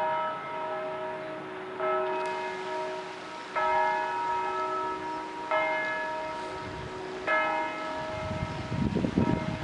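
Church bell tolling, struck five times about every two seconds, each stroke ringing on and fading before the next. A low rumble comes in near the end.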